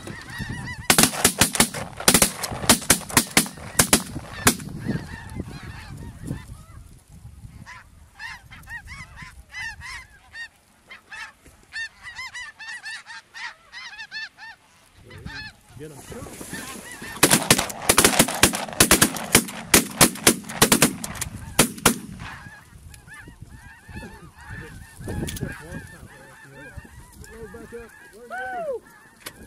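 Snow geese honking in a large flock, broken twice by rapid volleys of shotgun fire from several shooters: a burst of shots about a second in and another run of shots a little past the halfway point.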